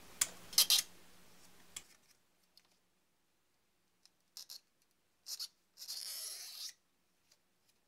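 Hobby knife clicking and scraping on a 3D-printed plastic phone case as its cutouts are trimmed: a few sharp clicks in the first second, short scratches after four and five seconds, and a longer scrape just before the end.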